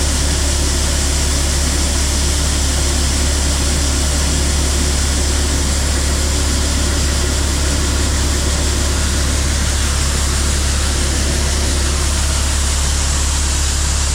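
A vehicle engine running steadily under load, with a constant deep drone and even road or machine noise that does not change.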